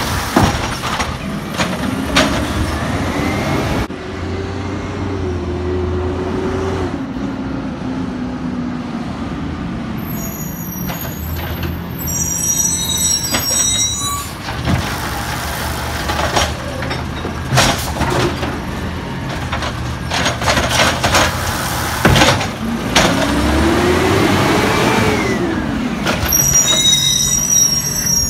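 Automated side-loader garbage truck powered by compressed natural gas, working its hydraulic arm. The engine revs up and falls back twice, once early and once near the end, as the arm lifts and tips recycling carts, with repeated knocks and bangs from the carts and arm. High squeals come around the middle and again near the end as the truck stops between pickups.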